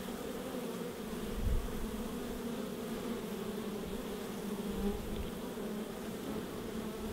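Many honey bees buzzing at a hive entrance, a steady, even hum; a brief low thump about a second and a half in.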